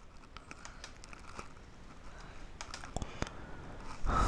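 Light scattered clicks at a computer as a slideshow is advanced, with a couple of sharper clicks about three seconds in and a short burst of rustling noise near the end.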